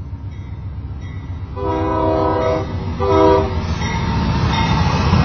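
Amtrak GE Genesis diesel locomotive sounding its multi-tone air horn at close range: one long blast about a second and a half in, then a short one. The low rumble of the engine and wheels swells as the locomotive and its cars pass close by.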